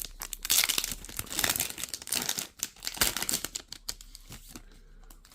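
Packaging crinkling and rustling as it is handled, a dense crackle that thins out over the last second or two.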